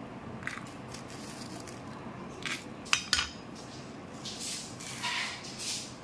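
Whole spices tipped from a plate into hot oil in a clay cooking pot: a few sharp clinks of crockery against the pot around the middle, then short sizzling rushes as coriander and cumin seeds land in the oil near the end.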